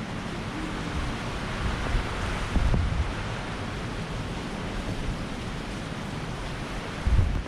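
Strong typhoon wind blowing steadily, buffeting the microphone with a low rumble. It swells about two seconds in, and a harder gust hits near the end.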